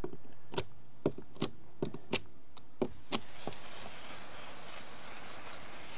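A small hand-held object scraping debris out of the gap between a stair riser and a concrete pad: about seven short, sharp scrapes. About halfway through, a garden hose spray nozzle opens up on the concrete with a steady hiss of water spray.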